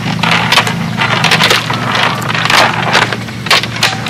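A small engine running steadily under repeated scraping and clattering knocks as a cast net and its catch of fish are handled.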